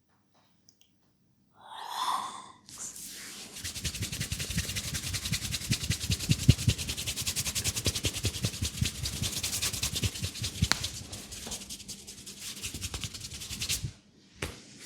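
Hands rubbing vigorously through hair and over the scalp close to the microphone: a dense, fast, scratchy friction sound with soft thumps underneath. It starts a few seconds in after a short burst of sound and stops abruptly near the end, followed by a single click.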